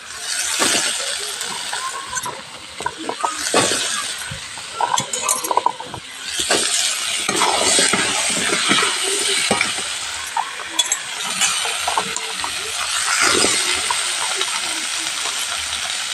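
Diced potatoes and carrots sizzling in hot oil and masala in a metal kadhai, with a metal spatula scraping and clinking against the pan as they are stirred. The sizzle swells and fades in waves, with frequent sharp clicks of the spatula.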